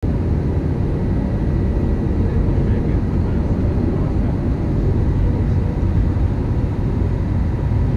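Airbus A321 cabin noise on final approach, heard from a window seat over the wing: a steady low rumble of the jet engines and rushing air, with a faint steady whine above it.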